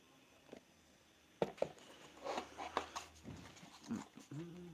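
Handling noise from a DJI Mavic Mini drone being picked up and turned in the hands: a couple of sharp plastic clicks about a second and a half in, then soft knocks and rustling. Near the end comes a short low hum with a few brief vocal sounds before it.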